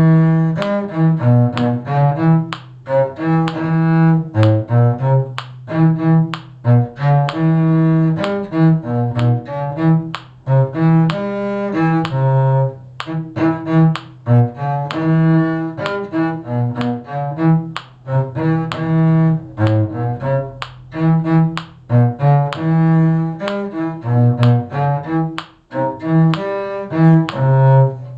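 Bowed string instruments playing a tune in A major in several parts at once, with a low cello-range line prominent and notes changing steadily stroke by stroke.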